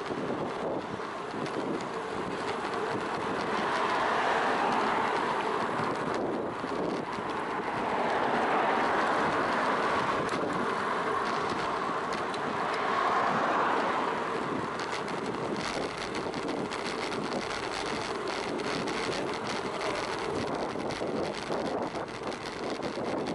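Wind rushing over the microphone of a camera on a moving road bicycle, with tyre and road noise. It swells louder three times, and there are many small clicks and rattles in the later part.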